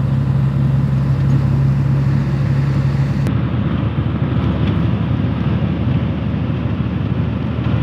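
Engine and tyre noise of a vehicle driving at speed on a highway, a steady running sound with a low hum. A little past three seconds in, the hum stops and the sound turns duller.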